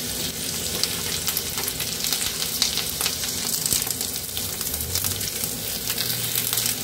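Halved ivy gourds sizzling in hot oil in a kadhai over medium-high heat, a steady frying hiss. A spatula stirs and turns them, clicking and scraping against the pan many times.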